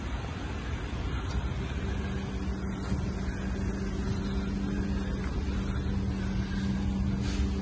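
2011 Ford F-150 XL pickup's engine idling: a steady low hum with a faint even drone that firms up about two seconds in.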